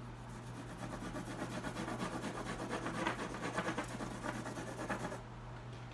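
Red carbon (conté) pencil shading rapidly on coloured xuan paper: a dense run of quick scratching strokes that stops about five seconds in.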